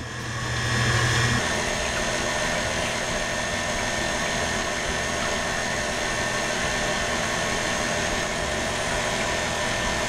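KitchenAid stand mixer motor running steadily, its wire whip churning cream at the butter stage, with the butter clumped and separated from the buttermilk.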